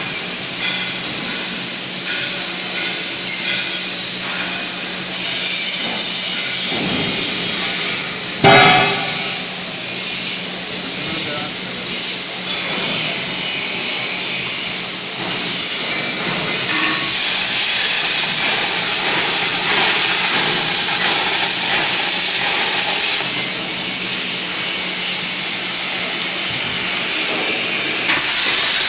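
Plasma torch of a CNC plasma cutting machine cutting steel plate: a steady, high-pitched hiss of the arc and gas jet over a steady low hum, growing louder about 17 seconds in. A single knock about eight seconds in.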